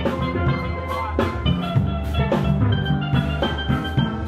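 Steel band playing live: steel pans ringing out a melody over low bass notes, with a regular drum beat.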